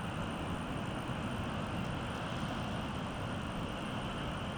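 Steady, even outdoor rumble of wind and surf, with no distinct events.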